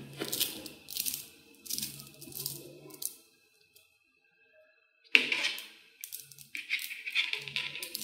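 Small magnetic balls clicking and clattering against each other as a handful is squeezed and a chain of them is pulled off and pressed back on. Quick runs of tiny clicks come in bursts with a short silent pause in the middle, then one sharp snap about five seconds in, followed by more clattering.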